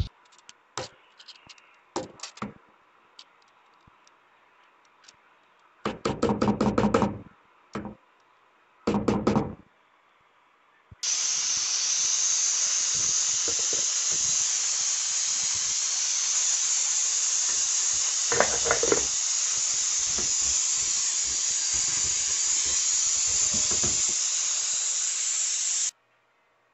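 Pots and lids knocking and rattling on a gas stove in short clusters. Then a steady hiss of steam from an aluminium pressure cooker's valve starts abruptly about eleven seconds in and cuts off shortly before the end.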